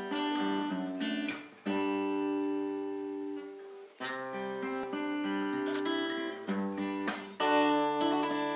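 Acoustic guitar strumming slow chords, one struck every couple of seconds and left to ring.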